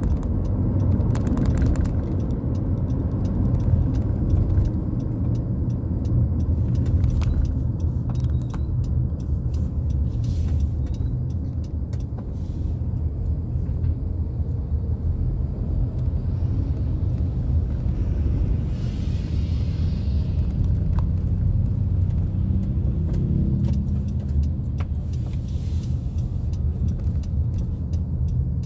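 Steady low rumble of engine and road noise inside the cabin of a moving car, with brief faint hisses now and then.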